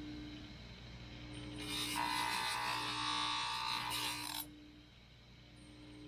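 Bench grinder running with a steady hum; about a second and a half in, the steel claw end of an antique crate hammer is held to the wheel, giving a loud grinding hiss for under three seconds before it is pulled away.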